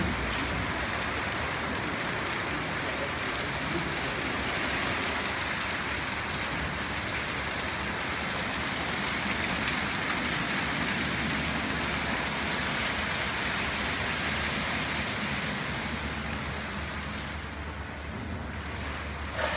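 Haitian XL200 rollover car wash machine washing a car: water spraying and soft rotating brushes scrubbing the bodywork, a steady rushing hiss that eases slightly near the end.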